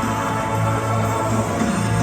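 Background music with a steady pulsing bass line.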